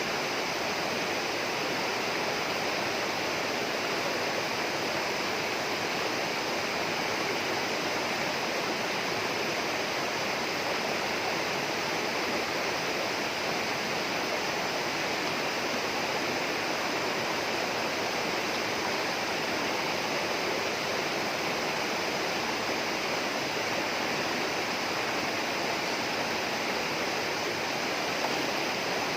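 Steady, unbroken rush of running water, as of a rainforest stream or small waterfall.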